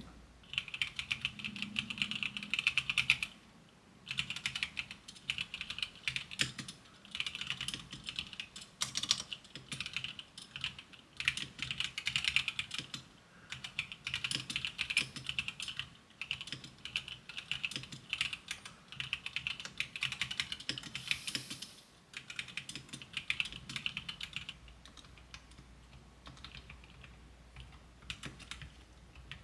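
Typing on a custom mechanical keyboard fitted with lubed Gateron White linear switches and lubed stabilizers: quick, soft key clacks in runs of several seconds with brief pauses, softer over the last few seconds. A slight hollow case resonance and some stabilizer wire rattle remain, as the builder notes.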